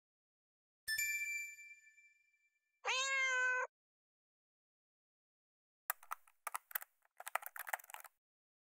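A bright chime strikes and rings away, then a single short cat meow follows. Near the end comes a quick run of clicks and crackles.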